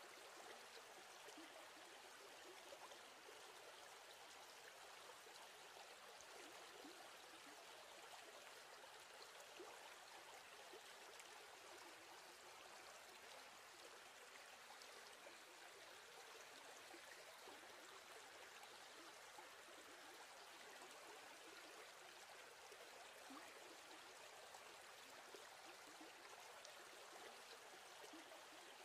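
Near silence: a faint, steady hiss with no distinct sounds.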